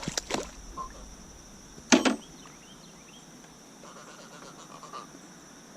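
Steady high-pitched insect drone with a few clicks at the start and one sharp knock about two seconds in, the loudest sound.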